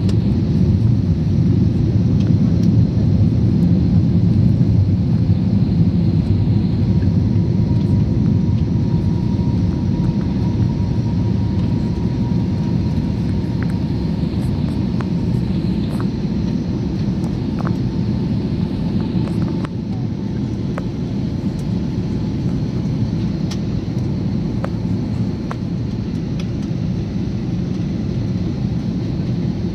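Airliner cabin noise on the descent into landing: a steady low rumble of engines and airflow heard through the cabin, with a faint thin whine over it for a while. The level eases slightly about twenty seconds in.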